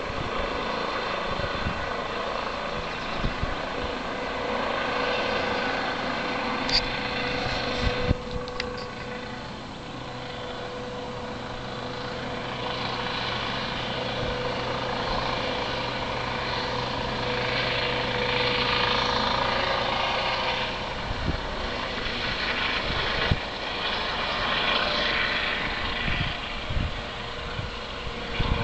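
Distant rescue helicopter flying toward the listener: a steady rotor and turbine hum that grows louder through the second half as it approaches. A few brief knocks sound over it.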